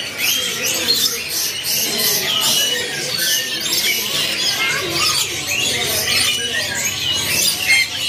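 A dense chorus of many caged canaries and finches chirping and calling over one another, a constant overlapping chatter of short high chirps and quick up-and-down notes.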